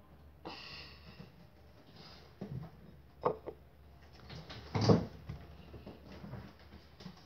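Scattered knocks and clatter of a bowl being handled and lifted off a table, with a short scrape near the start and one loud knock about five seconds in.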